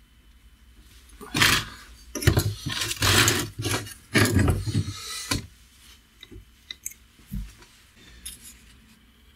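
Handling noise as an angle grinder is fitted into a welded steel stand on a chipboard base: several seconds of metal scraping and clunking, with a few sharp knocks. This is followed by a few light taps and a soft thump as a steel square is set against it.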